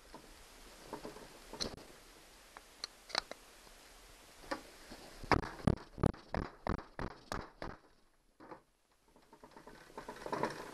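Mallet blows on a Honda 9.9 hp outboard's powerhead, knocking at the joint to split it from the midsection: a few scattered taps, then a quick run of about ten blows, about four a second, some five seconds in.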